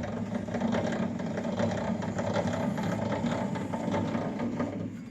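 The drive mechanism of a DoAll 2013-10 vertical bandsaw with no motor fitted, turned by hand: a steady mechanical whirr with rapid fine clicking from its gears. It runs freely, with nothing seized.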